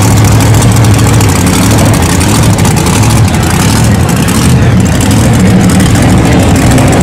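Lifted Ford Super Duty pickup's engine running loud and steady as the truck rolls slowly by.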